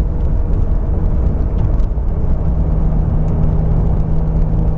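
Turbocharged S52 straight-six of a 1999 BMW M Coupe running at a steady cruise, with road and tyre noise. A steady engine drone settles in about two seconds in.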